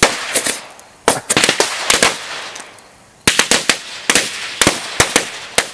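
A batch of bottle rockets going off: rapid strings of sharp pops with hissing between them, in three clusters, the last lasting about two seconds.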